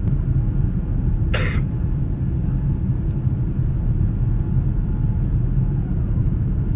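Steady low cabin rumble of a Boeing 787-9 in its climb after takeoff, heard from inside the passenger cabin. About a second and a half in there is one short, sharp noise, like a cough.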